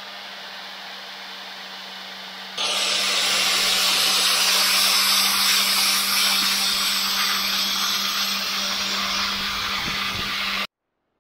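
Electric angle grinder with a pink abrasive polishing disc, running with a steady motor whine. About two and a half seconds in it turns much louder, with a harsh hiss as the disc is worked against a stainless steel spoon lure. The sound cuts off suddenly near the end.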